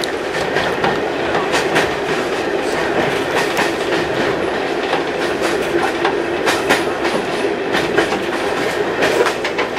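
Heritage railway carriage running along the track, heard from inside: a steady rumble and rattle of the coach with the wheels clicking over rail joints at irregular intervals.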